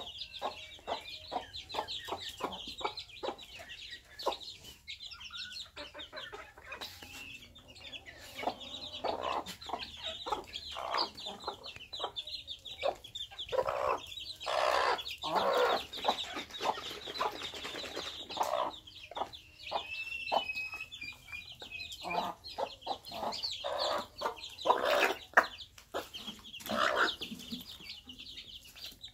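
Hens clucking among a brood of chicks, whose short high peeps run on almost without a break.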